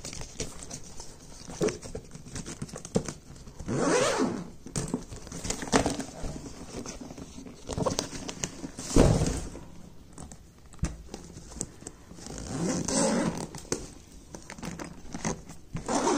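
The zip of a hard-shell backpack's main compartment being pulled open around the bag in several separate rasping pulls, with clicks and fabric rustle from handling the bag in between.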